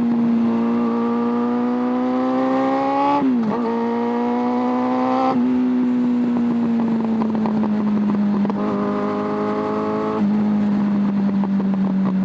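Suzuki Bandit 600's carburetted inline-four engine pulling under throttle, its note rising steadily. About three seconds in it drops sharply at an upshift and climbs again. After about five seconds it falls away off the throttle, then holds a steady lower note.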